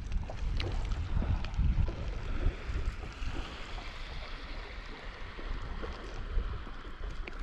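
Wind rumbling on the microphone, heaviest in the first couple of seconds, over a steady hiss of sea water washing on a shingle beach, with a few small clicks.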